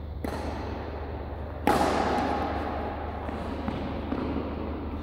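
Badminton rally in a sports hall. There is a sharp racket hit about a quarter second in, then a much louder crack about a second and a half later that rings on in the hall's echo, all over a steady low hum.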